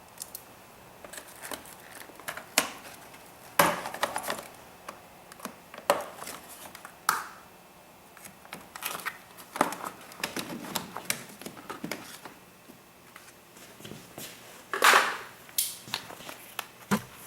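Irregular clicks, knocks and crinkling of hands unclipping and pulling at plastic parts and wiring in an engine bay, with a louder scrape near the end.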